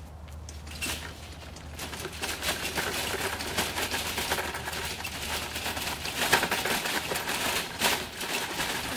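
Metal mesh utility wagon loaded with plastic buckets rattling and clattering as it is pulled over a rough dirt path: a dense, irregular run of rapid clicks and knocks that grows louder about a second in.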